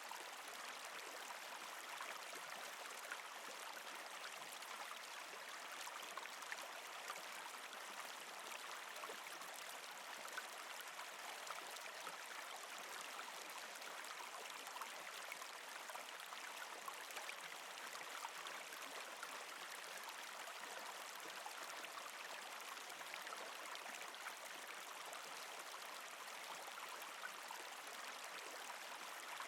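Mountain stream babbling steadily over rocks, an even wash of rushing water with many small splashes and trickles.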